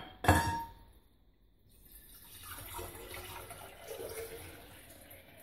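Water poured from a glass measuring jug into a pitcher, a steady splashing stream from about two seconds in. A short knock with a brief ring just after the start is the loudest sound.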